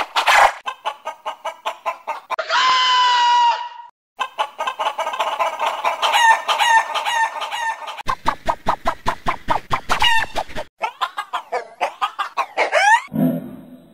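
Hen clucking in quick repeated clucks, run through a string of audio effects: a warbling pitch, one long held call about two and a half seconds in, an echoing delay, and near the end a wobble whose pitch glides up and down.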